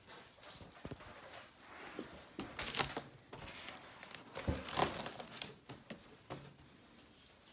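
Foil animal balloons crinkling and rustling as a baby bats and pushes them by hand, in irregular bursts, the loudest near the middle.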